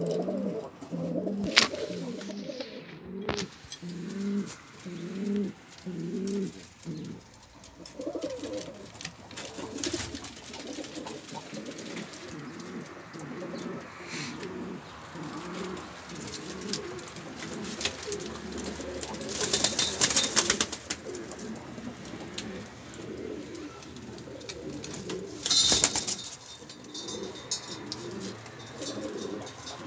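Domestic pigeons cooing repeatedly in a loft, with a regular run of coos early on. Two louder bursts of rustling noise stand out, one about two-thirds of the way in and one shorter near the end.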